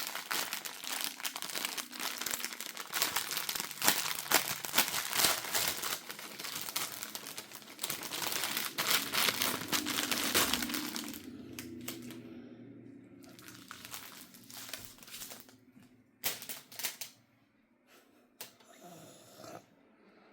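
Plastic packaging crinkling and crackling as it is worked open by hand: dense crinkle-crackle for about the first ten seconds, then sparser crinkles with short pauses.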